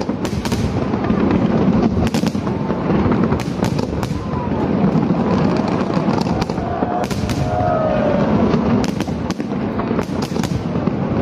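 Aerial fireworks display: many shells bursting in quick succession, a stream of sharp bangs and crackles over a continuous rumble.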